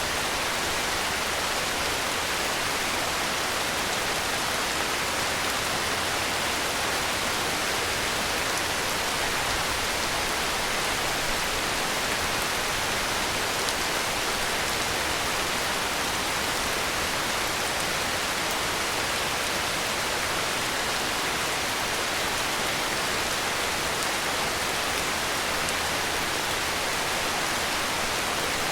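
Heavy rain falling steadily, an even hiss without distinct drops, thunder or other events.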